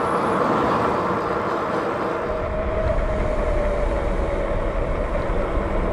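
Cyrusher Trax fat-tire e-bike rolling at about 27 mph: a steady rush of tire noise on asphalt with a faint thin whine, and wind buffeting the microphone, heavier from about two seconds in.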